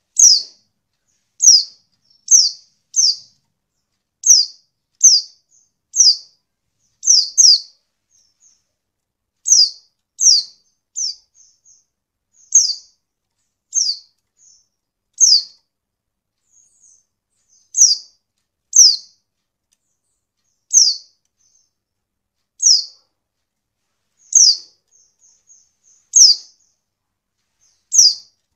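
Female white-eye (pleci) calling: short, sharp, high chirps that drop in pitch, repeated at irregular intervals of about a second. This is the call used as a lure to make male white-eyes answer and sing.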